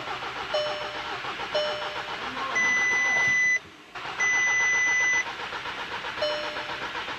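MK6 Volkswagen GTI's engine being cranked over without firing, turning in fast even pulses, to prime the new turbo with oil. A short chime repeats about once a second, and two loud, steady high beeps, each about a second long, sound in the middle.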